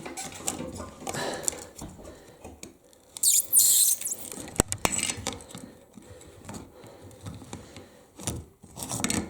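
Adjustable pliers gripping and turning the locking nut ring on a toilet's flush valve, with scrapes, rattles and sharp clicks; a loud hissing scrape comes about three to four seconds in, then one sharp click.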